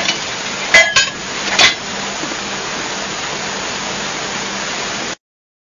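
Metal clanking from bolting work: three sharp metal-on-metal strikes in the first two seconds, the first one ringing, over a steady hiss and hum of machinery. The sound cuts out abruptly to silence about five seconds in.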